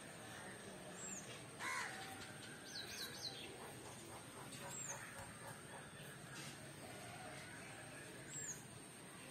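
Birds calling outdoors: one louder, harsher call about two seconds in, a quick cluster of high chirps soon after, and short high chirps now and then.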